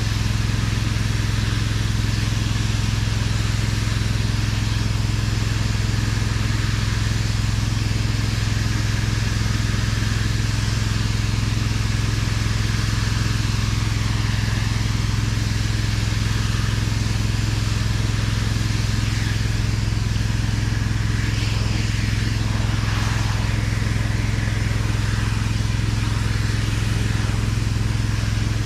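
Pressure washer's engine running steadily at a constant speed, with the hiss of water spray over it; the spray changes briefly a little past the middle.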